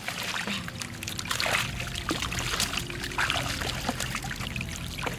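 Shallow water splashing and trickling with many irregular small splashes.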